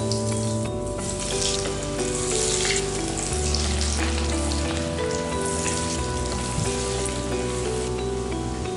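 Breaded chicken fingers deep-frying in hot oil in a cast-iron kadai: a steady, vigorous sizzle and bubbling that surges several times as more pieces go into the oil. Background music plays under it.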